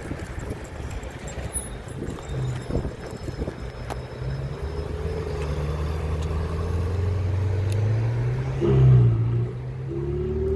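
Ferrari 488's twin-turbo V8 engine pulling away at low speed, its note climbing steadily and loudest about nine seconds in, then dipping briefly and rising again near the end.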